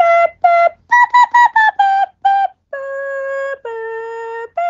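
Background music: a simple melody on a flute-like sound, a run of about a dozen short separate notes followed by two longer held notes, the second one lower.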